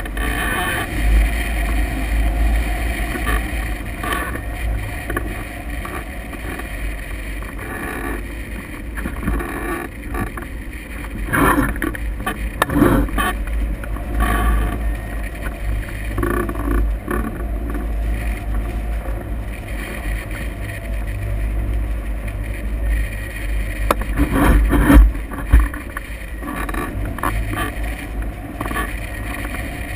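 Rushing wind buffeting the microphone of a camera mounted on a hang glider in flight, a steady deep rumble with louder gusts about halfway through and again near the end.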